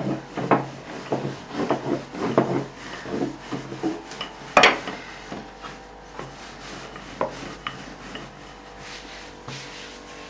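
Wooden rolling pin rolling out a ball of yeast dough on a floured wooden board: repeated rubbing and rolling strokes with light knocks, one sharp knock of the pin on the board about four and a half seconds in, and quieter strokes after that.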